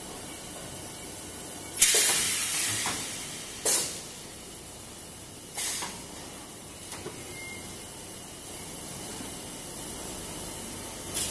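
Compressed-air hissing from a double-station HDPE bottle blow molding machine in its cycle. A long hiss comes about two seconds in, then short sharp blasts near four and six seconds and a few small clicks, over the machine's steady running noise.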